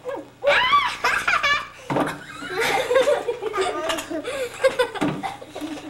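Young children laughing and squealing in high, wavering voices, with lower giggling and chatter after the first couple of seconds.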